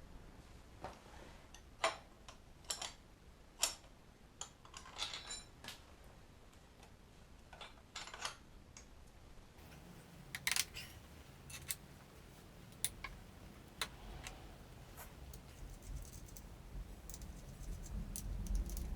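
Scattered sharp clicks and light metallic knocks at irregular intervals, from hands and tools working on the engine. A low rumble grows over the last few seconds.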